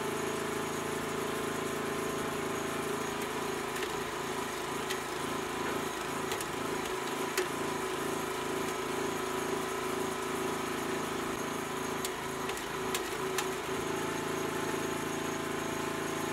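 Small petrol engine of a homemade auger branch shredder running steadily through its reduction gearbox, pulsing under load for several seconds from about four seconds in as the screw pulls in and crushes a branch about 35 mm thick, with a few sharp cracks of splitting wood.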